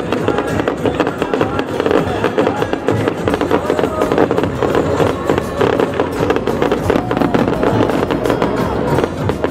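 Fireworks crackling and banging in rapid succession over the show's accompanying music.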